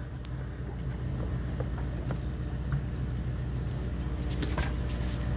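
Steady low hum of a fishing boat's onboard engine running, with a few faint light clicks and knocks over it.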